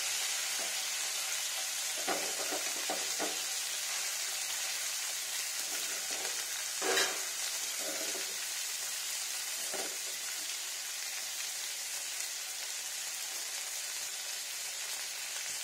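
Small whole bata fish shallow-frying in oil in a frying pan, with a steady sizzle. A metal spatula scrapes and knocks against the pan a few times in the first two-thirds, loudest about seven seconds in.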